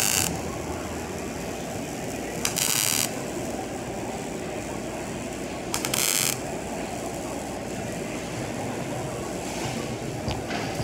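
Wire-feed welding arc crackling in three short bursts of about half a second each, roughly three seconds apart, as short welds are laid on sheet metal, over a steady low background rumble.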